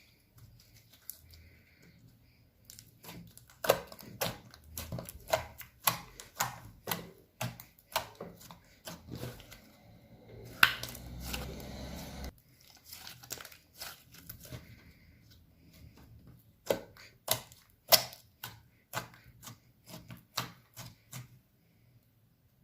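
Glossy clear slime being squished and worked by hand, giving irregular sticky clicks and pops, a few a second. About two seconds of steadier squelching comes near the middle.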